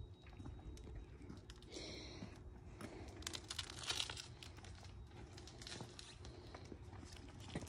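Rustling and crackling handling noise with many small clicks, busiest about three to four seconds in, as a cat is lifted and settled into a bicycle basket.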